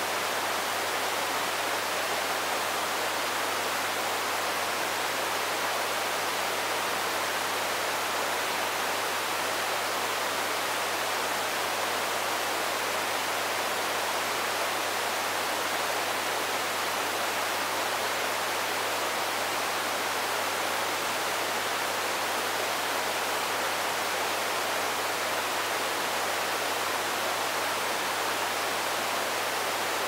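Steady white noise from the noise generator of a Moog CP-251 synthesizer module: an even, unchanging hiss, with a faint low hum underneath.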